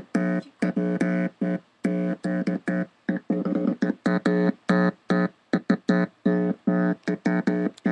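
Electronic buzzing tone from a small speaker, cutting in and out irregularly many times with a click at each start, as skin contact between people completes and breaks the circuit. The tone holds mostly one pitch and wavers briefly about halfway through.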